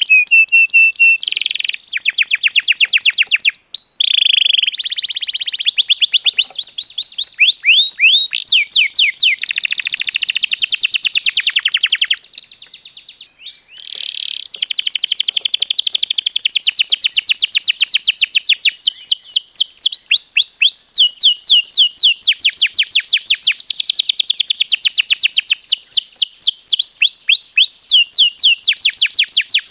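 Domestic canary singing a long, loud, continuous song of fast trills and rolled notes, with a few held whistles; the song breaks off briefly about halfway through.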